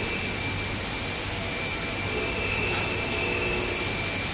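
Plastic injection molding machine running: a steady mechanical noise with a low hum and a thin, steady high whine.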